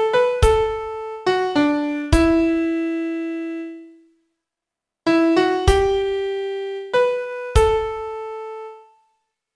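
Piano playing a slow melody one note at a time, each note struck and left to ring and fade. Five notes, the last held until it dies away; a pause of about a second; then five more, ending on a held note that fades out.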